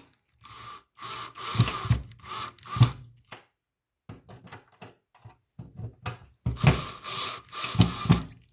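Phillips screwdriver driving small screws into a plastic wallplate frame: scraping, ratcheting clicks in two spells, the first near the start and the second near the end, with faint ticks between.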